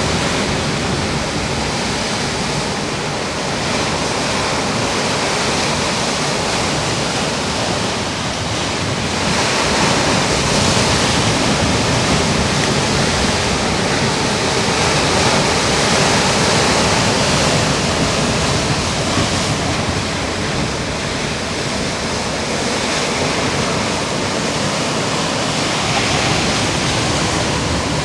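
Ocean surf breaking and washing on a rocky shore: a steady rushing noise that swells a little louder partway through.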